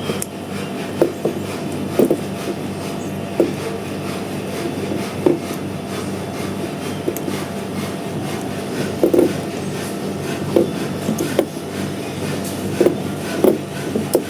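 Irregular small knocks and rubbing from hands handling parts while connecting the horn wiring, about one knock a second, over a steady low hum.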